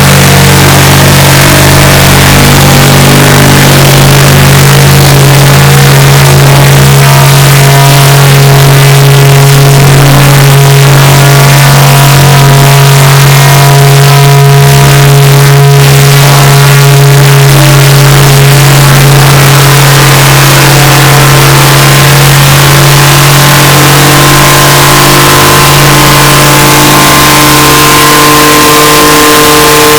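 The 'bruh' meme voice clip time-stretched into a long, unbroken drone. It is very loud and harshly distorted, holding one steady low pitch, while its upper overtones shift slowly.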